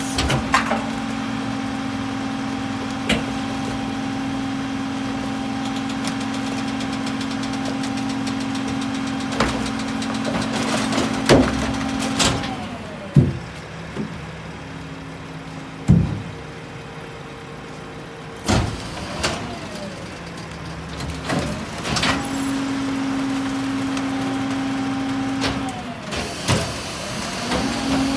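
Heil split rear-loader garbage truck's diesel engine running with a steady hum. The hum drops lower about twelve seconds in and comes back up later. About nine sharp clanks and thuds sound as recyclables are thrown into the rear hopper.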